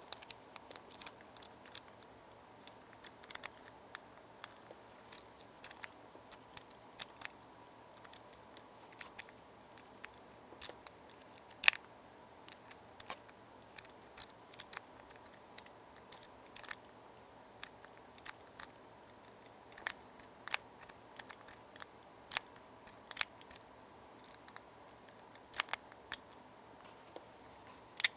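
Steel lock picks, a saw rake and tension wrench, raking inside the keyway of a Master Lock Excell padlock: irregular small metallic clicks and scrapes as the pins are worked, with one sharper, louder click about a third of the way through.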